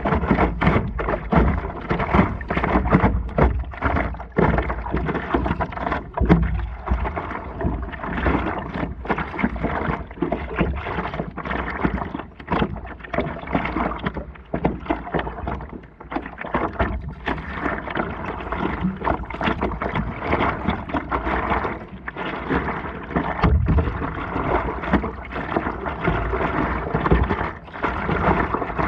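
Water sloshing and splashing against the nose of a stand-up paddleboard as it is paddled along, an uneven run of splashes over a low rumble.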